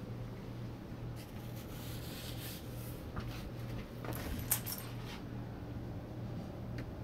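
Steady low electrical hum under rustling handling noises, with a brief metallic jingle and clicks about four and a half seconds in.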